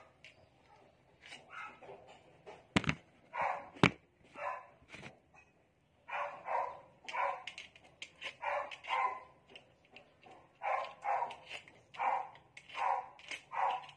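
A dog barking over and over, about one to two barks a second, with a short pause in the middle. Two sharp knocks, the loudest sounds, come about three and four seconds in.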